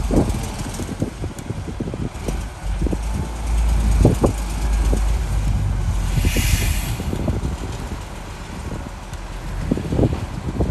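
Heavy earthmoving machinery at work: a diesel engine's low rumble with scattered knocks and clanks, and a short burst of hissing about six seconds in.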